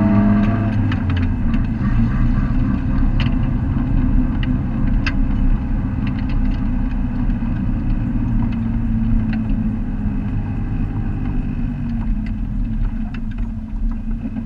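A Neon race car's four-cylinder engine heard from inside the cabin, pulling hard on a hillclimb run. The revs drop in the first second, then hold fairly steady, with scattered sharp ticks and rattles over the engine note.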